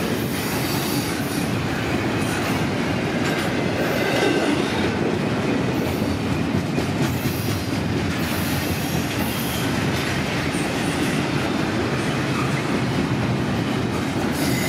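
Double-stack intermodal container train rolling past: the well cars' steel wheels on the rail give a steady rumble and clatter, with brief high-pitched wheel squeals now and then.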